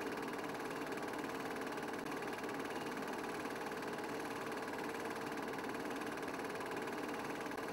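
Film projector running: a steady mechanical whir with a fast, even clatter that does not change in speed or pitch.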